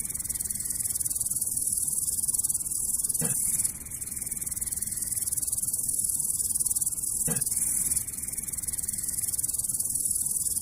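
Insects trilling, a dense, steady high-pitched chirring.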